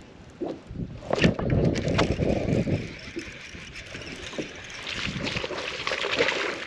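Water splashing and sloshing with irregular knocks and clicks around a small fishing boat, loudest about a second in and again near the end.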